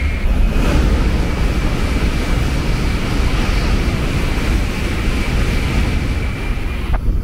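Shinkansen bullet train passing through the station at high speed: a loud, steady rush with a deep rumble and a thin high whine. It cuts off abruptly about seven seconds in.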